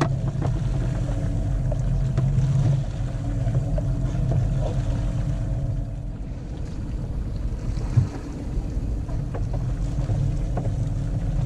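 Boat engine running steadily, with wind and sea noise and a single knock about eight seconds in.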